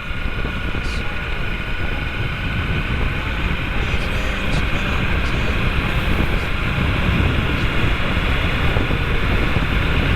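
Kawasaki W800 motorcycle under way: wind rushing over the microphone over the engine's low running drone, growing slowly louder.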